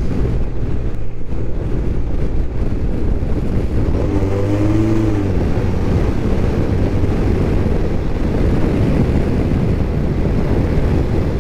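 Riding noise from a BMW R1250RT motorcycle heard at a helmet-mounted action camera: steady wind rush on the microphone over the engine running underneath, with a brief rise and fall in pitch about four seconds in.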